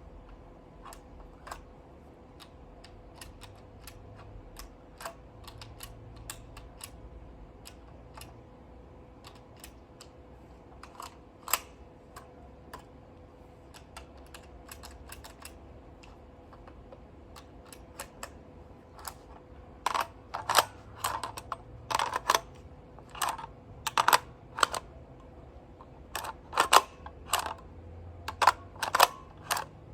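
Sharp plastic and metal clicks and snaps from handling a .177 airgun as its parts are worked. The clicks are sparse and faint at first, then come louder and quicker, several a second, in the last third, over a faint steady hum.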